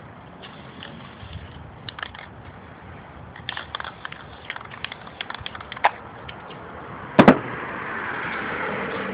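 Spray paint can being handled, with light clicks and rattles, then a sharp double knock about seven seconds in, followed by the steady hiss of aerosol spray paint being sprayed.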